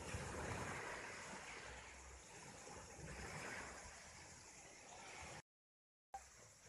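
Faint seaside ambience of surf and wind buffeting the microphone, swelling and easing. The sound cuts out completely for under a second near the end.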